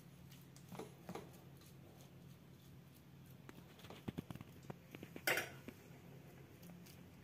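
Steel slotted spoon scraping and tapping against a steel plate while spreading thick besan mixture, with scattered light clicks and a louder short clatter about five seconds in. Faint, over a low steady hum.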